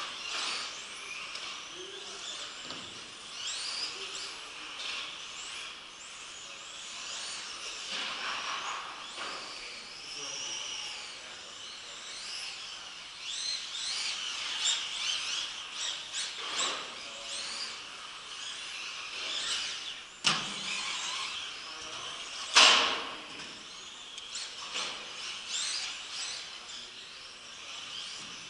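High-pitched whine of 1/10 electric RC buggy motors, including a Yokomo SO 1.0 with a modified-class brushless motor, sweeping up and down in pitch with throttle as they lap the track. There are two sharp knocks about twenty seconds in, the second one, about two seconds later, louder.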